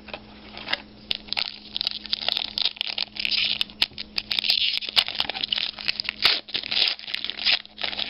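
Trading-card pack wrapper being torn open and crinkled by hand: a dense, irregular run of crackles and sharp clicks.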